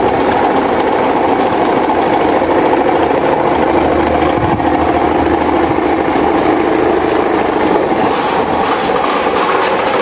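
Several electric desk fans running together: a steady, loud whir of motors and blades pushing air.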